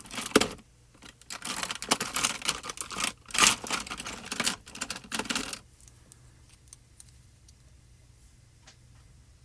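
Cardstock pieces being handled and worked at a craft desk: a sharp click about half a second in, then about four seconds of dense crackling paper rustle that stops abruptly, followed by a few scattered light clicks.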